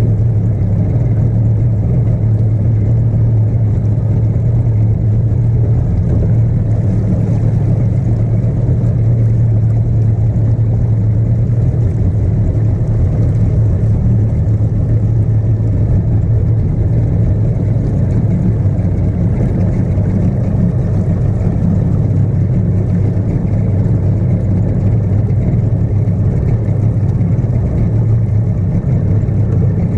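Outboard motor running at a steady cruising speed, a loud, even drone pushing the boat across the water.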